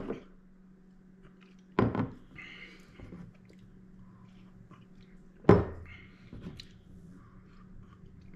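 Drinking glasses set down on a hard tabletop: three sharp knocks a couple of seconds apart, with soft sips from the glasses between them over a steady low hum.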